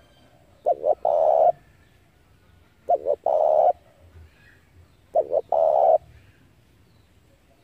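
Spotted dove cooing: three calls, each two quick short coos followed by one longer coo, repeated about every two seconds.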